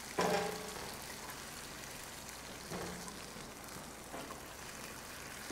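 Water ladled into a hot pan of sautéed diced potatoes, sizzling steadily. A metal ladle knocks on the aluminium pot a few times, each knock ringing briefly.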